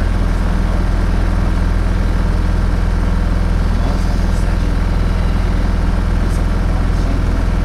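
Inside a DAF SB220 single-deck bus: the diesel engine runs steadily under a constant low drone, with the engine cooling fan 'hoovering', a steady vacuum-cleaner-like rush over it.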